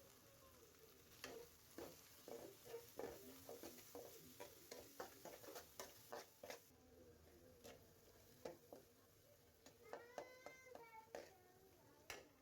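Spoon stirring and tapping against a pan of cooking jujube pickle: a run of irregular light clicks, over a faint sizzle that dies away partway through. A brief high squeak comes near the end.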